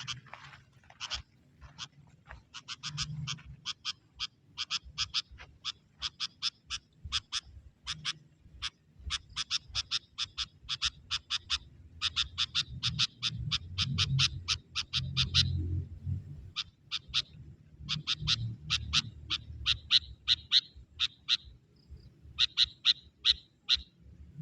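Young sooty-headed bulbul (kutilang) used as a decoy, calling in rapid series of short, sharp notes, about five a second, in runs of a few seconds with short pauses. It is calling to lure wild bulbuls.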